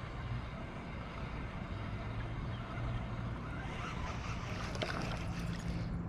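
Steady wind and water noise around a kayak on the open water, with a low hum underneath and a couple of faint clicks about five seconds in.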